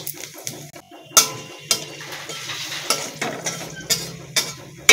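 A metal spatula scrapes and clinks against a metal kadai, with several sharp knocks, while cumin seeds and a dried red chilli sizzle in hot oil as a tempering.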